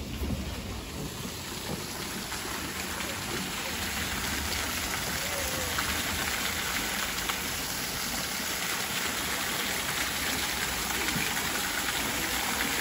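Small garden waterfall, thin streams of water splashing into a rock pool: a steady rushing patter that swells over the first few seconds and then holds.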